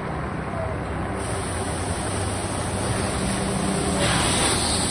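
Olympia ice resurfacer running as it drives past close by, a steady mechanical hum that grows louder as it nears, with a hiss coming in about a second in.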